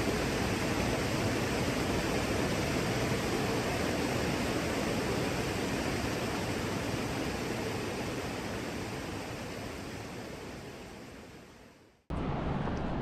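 Waterfall rushing as a steady, even roar that fades away over the last couple of seconds, then cuts to quieter outdoor noise shortly before the end.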